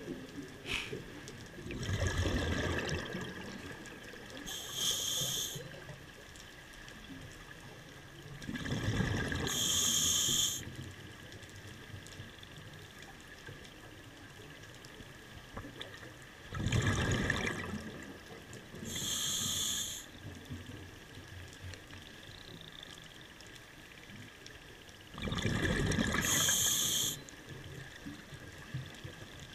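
Scuba diver breathing through a regulator, heard underwater. A low rush of exhaled bubbles alternates with a sharp high hiss of inhaling, four breaths at about one every seven to eight seconds.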